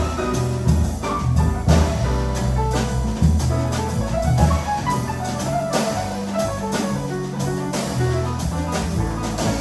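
Jazz quartet of trumpet, piano, double bass and drum kit playing live. Low bass notes change every fraction of a second under pitched melody lines, with frequent drum and cymbal strokes.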